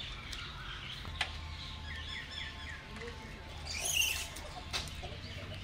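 Small birds chirping in short, repeated calls, with one louder, higher call about four seconds in and a few sharp clicks.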